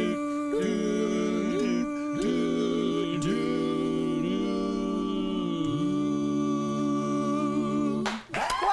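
Male a cappella quartet singing the song's closing chords in four-part harmony, with long held notes; the final chord is held for about two seconds and cuts off about eight seconds in.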